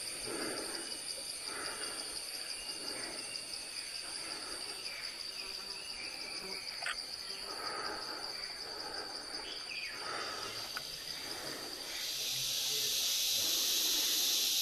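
Forest insect chorus: a steady, high, pulsing trill of crickets, with soft rustling about once a second underneath. About twelve seconds in, a louder, hissing insect drone joins it.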